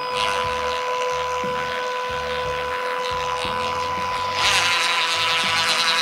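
Makita DCG180 cordless caulking gun's motor and gear drive running steadily as it pushes sealant out of a sausage pack. About four seconds in it gets louder and brighter as the gun speeds up.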